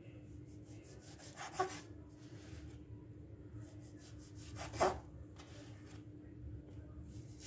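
Kitchen knife sawing through the crusts of sliced white bread on a wooden cutting board: faint rasping strokes, with two louder knocks, about a second and a half in and about five seconds in.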